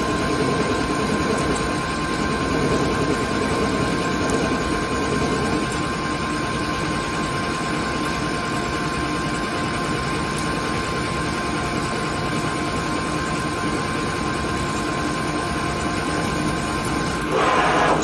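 CNC lathe cutting a spinning workpiece under flood coolant: steady machine noise with a high whine held throughout. A louder rush of noise comes in near the end.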